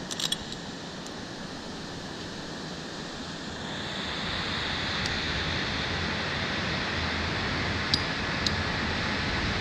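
Steady rushing hiss that grows louder about four seconds in, with a few small clicks at the start and two more near the end.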